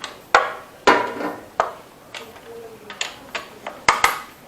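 Irregular sharp metallic clinks and clanks, about eight of them, each ringing briefly, from metal tools or engine parts being handled.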